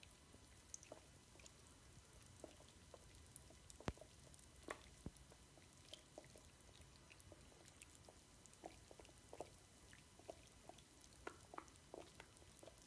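Faint crackling and popping of a large bath bomb fizzing as it dissolves in bath water: irregular small pops, with a sharper click about four seconds in.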